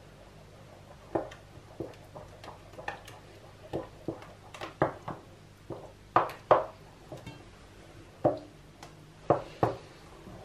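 Wooden spoon stirring a runny batter in an enamel bowl, knocking against the bowl's sides in irregular taps, with a louder cluster about six seconds in.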